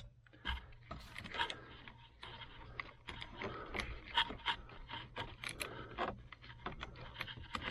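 Irregular clicks, taps and scrapes of hard plastic parts as the headlight/turn signal combination switch is worked loose from the steering column.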